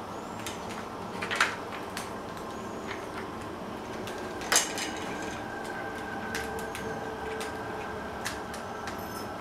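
Kittens at play on a hardwood floor with plastic toys: scattered light clicks and taps, with two sharper knocks about one and a half seconds and four and a half seconds in.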